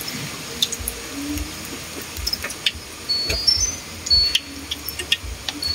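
Irregular light clinks and taps of a utensil against a bowl while batter is mixed, with short high bird chirps in the background.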